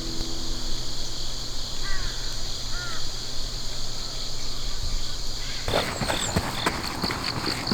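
Two crow-like caws about a second apart over steady outdoor background noise. About five and a half seconds in, a runner's footsteps crunching on fallen leaves start abruptly and carry on.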